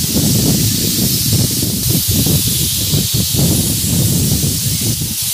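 Snake hiss sound effect: a loud, continuous hiss over a low, uneven rumble.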